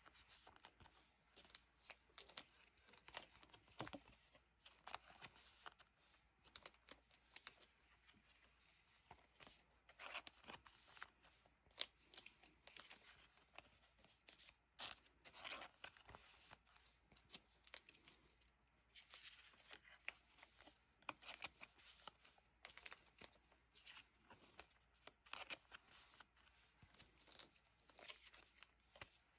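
Faint crinkling and rustling of thin clear plastic card sleeves as Pokémon cards are slid into them one after another, with light clicks and scrapes of card handling.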